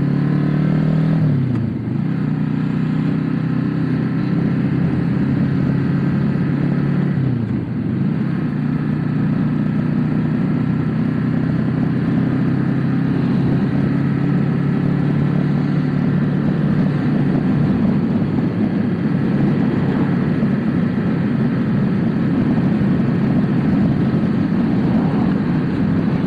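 Motorcycle engine running steadily under way, over a constant rush of wind and road noise. The engine pitch dips briefly and climbs back twice, about a second and a half in and again about seven and a half seconds in.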